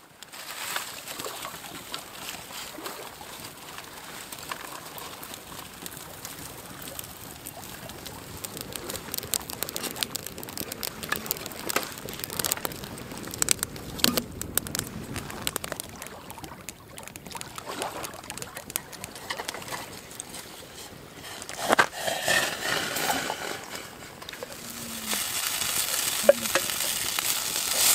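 Wood campfire crackling with many small pops, then food sizzling in a frying pan over the fire, the hiss building over the last few seconds.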